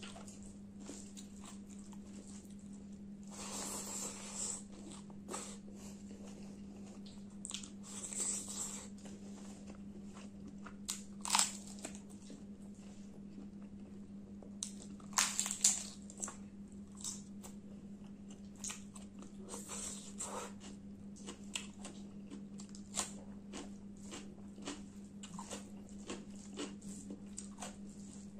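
Close-up eating sounds: chewing and mouth clicks, with several sharp crunches as crisp papad is bitten, the loudest about 11 and 15 seconds in. A steady low hum runs underneath.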